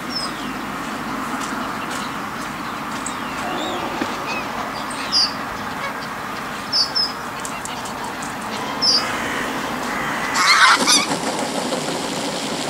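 A large flock of wild geese calling together in a steady chatter, with a few louder honks standing out now and then. About ten and a half seconds in, a loud rush of calls and wingbeats comes as many of the geese take off.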